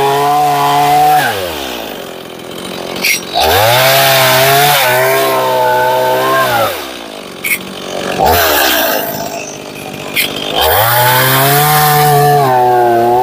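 Stihl MS 170 two-stroke chainsaw cutting into a pine log at full throttle, with the engine dropping back toward idle between cuts twice and revving up again into the wood.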